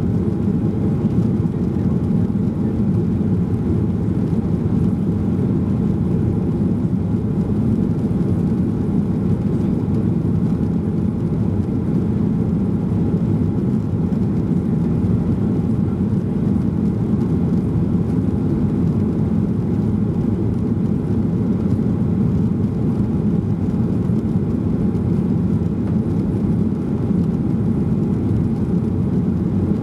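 Cabin noise inside a Boeing 737-800 climbing after takeoff: the CFM56 engines and the airflow make a steady low rumble with a faint hum above it, heard from a rear window seat.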